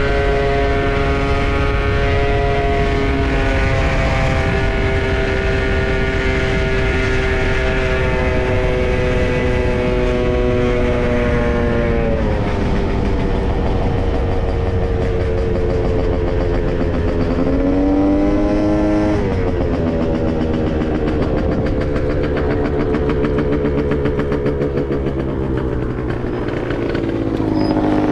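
Gilera Runner 180 scooter's two-stroke engine running under way at a steady pitch, easing off about twelve seconds in, revving up briefly around eighteen seconds, then dropping again near the end. Wind rumbles on the microphone underneath.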